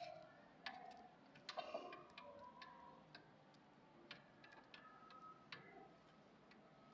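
Faint, irregular sharp ticks of chicks pecking, with a few soft chick peeps.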